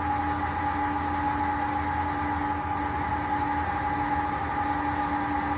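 Steady machine noise: an even hiss over a constant hum.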